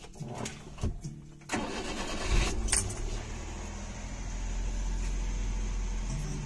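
Ignition keys jingle and click, then the Suzuki Multicab's small three-cylinder engine cranks and catches about a second and a half in, settling into a steady idle.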